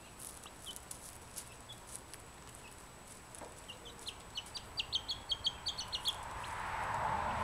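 A young chick peeping: scattered short, high peeps, then a quick run of them, about four a second, in the middle. A rushing noise swells up near the end.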